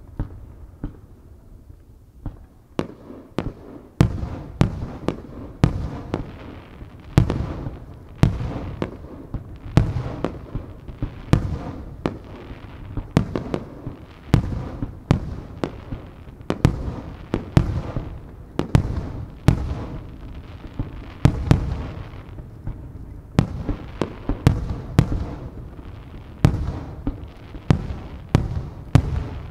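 Aerial firework shells bursting one after another, with sharp bangs about once or twice a second and a low rumble of echoes between them. The display is quieter for the first two seconds before the bangs start in earnest.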